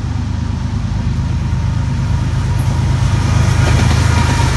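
BNSF diesel freight locomotives running past, a low engine drone that grows louder as they come close, with rising wheel-on-rail noise.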